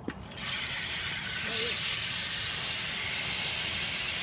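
Profile Elite rear cassette hub ratcheting as the back wheel freewheels: a steady, loud buzz that starts suddenly about half a second in. It is really loud.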